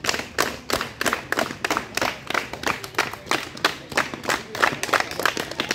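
A group of children clapping their hands together in a steady rhythm, about three claps a second.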